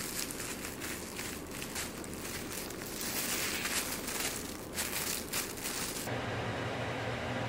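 Crinkling and rustling of a loose plastic food-prep glove and a dry nori sheet as rice is rolled up in seaweed by hand, with scattered crackles. About six seconds in the crinkling cuts off abruptly and a steady low hum takes over.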